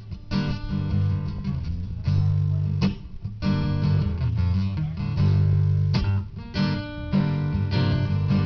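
Acoustic guitar strumming chords with strong low notes, playing a song's instrumental intro before the vocals come in.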